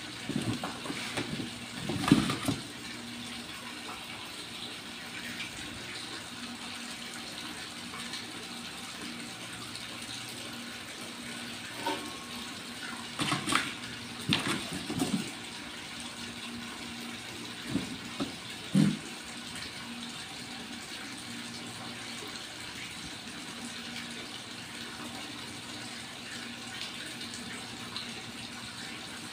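Kittens scuffling in a cardboard box: a few short bursts of scratching and thumps on the cardboard stand out from a steady rushing background noise.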